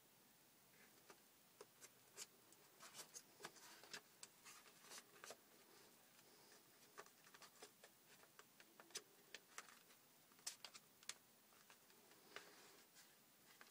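Faint, irregular light clicks and scrapes of a homemade cardboard toy pistol's parts being handled.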